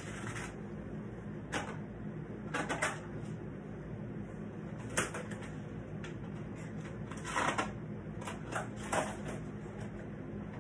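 A handful of short knocks and rustles from something being handled, over a steady low electrical hum.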